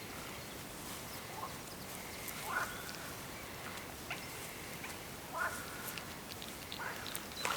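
Steady faint outdoor hiss with a few short, faint animal calls, four of them spaced a second or more apart.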